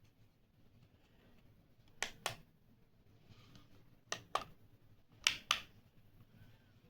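An IKEA alarm clock being handled: three sharp double clicks, the two clicks of each pair about a quarter second apart.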